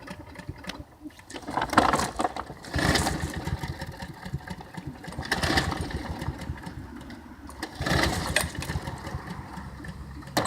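Lawn mower engine being cranked over and over, about four start attempts, sputtering between them without settling into a steady run. The cause is a clogged air filter starving it of air.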